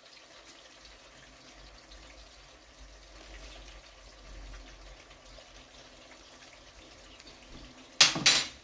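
Faint steady background noise as salt is spooned into a stainless-steel pot of water on the hob, with a brief loud sound near the end.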